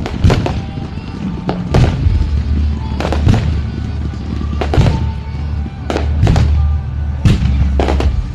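Fireworks shells bursting in a show: about a dozen sharp bangs, often in quick pairs, coming roughly every second and a half over a steady low rumble.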